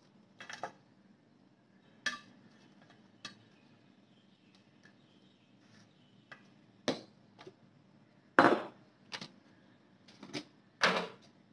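Kitchen items handled on a counter while whole fish are seasoned in a stainless steel tray: about ten separate clinks and knocks of bottles, containers and the metal tray, the loudest two near the end.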